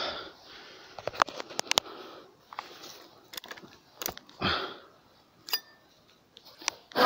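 Close handling noise: a run of sharp clicks and light rustles, with a sniff a little past four seconds in and more scattered clicks after it.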